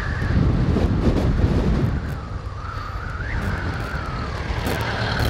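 Motorcycle riding on the road: the engine's rumble with wind buffeting the camera microphone and a wavering whine over it.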